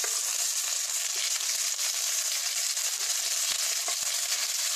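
Ginger paste and ground spice paste frying with the cumin, radhuni and bay-leaf tempering in a little hot oil in a kadai: a steady sizzle with a few faint ticks.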